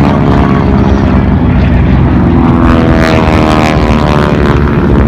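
Propeller airplane flying overhead, its engine drone loud and steady, with the pitch gliding as it passes about halfway through.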